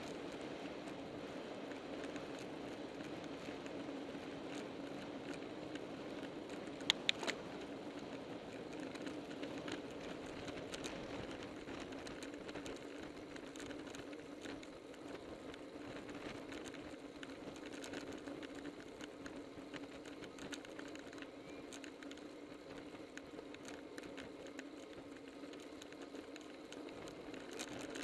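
Road bicycle riding at speed in a group, heard from a camera mounted on the bike: steady rushing tyre and wind noise with light scattered ticks, and two sharp clicks about seven seconds in.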